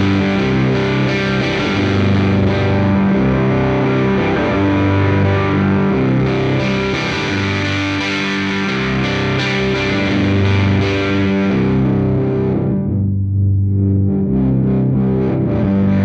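Stratocaster-style electric guitar played through a Moog MF Drive overdrive pedal: a distorted riff repeating while the pedal's tone and filter knobs are turned. About three-quarters of the way through, the treble drops away sharply, leaving a dull tone, then opens back up near the end.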